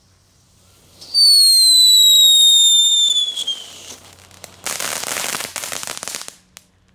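Category 1 ground firework (a Knetterking) going off: a loud whistle starts about a second in and slides slowly down in pitch for about three seconds, then breaks into a dense crackle for about a second and a half.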